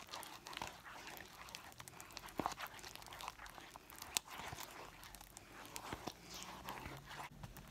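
Wooden stick stirring sticky glue slime in a paper bowl: faint, irregular small clicks as it works through the mixture just after contact solution has been added, while the slime is still sticky.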